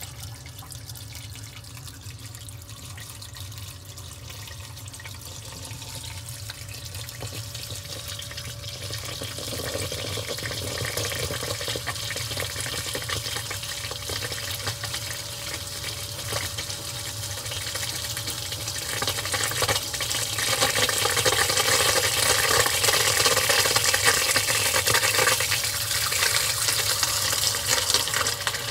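Water gushing from a PVC outlet pipe through a perforated drain diffuser into a plastic pre-filter bowl lined with filter batting, splashing and churning as the bowl fills. The flow gets louder about ten seconds in and again about twenty seconds in.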